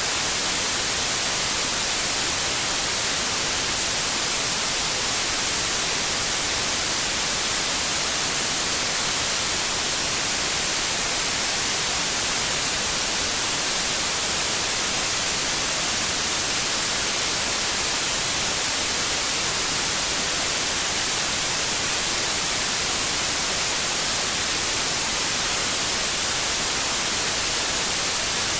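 Steady white noise: a constant, even hiss with no changes in level or character.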